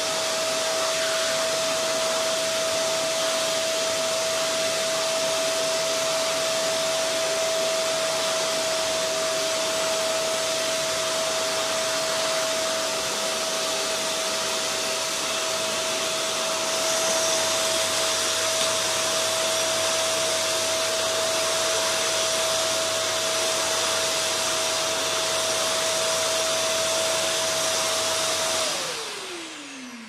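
Tacklife PVC01A wet and dry vacuum cleaner running on suction, pretty loud: a steady rush of air with one steady whine from the motor. The air noise turns a little brighter past halfway, and near the end it is switched off, the whine sliding down as the motor winds down.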